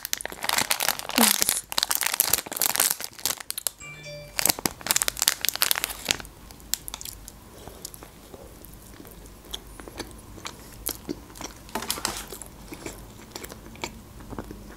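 Plastic wrapper of a packaged donut crinkling and tearing as it is peeled open, for about the first four seconds. Then sparse soft bites and chewing of the donut, close to the microphone.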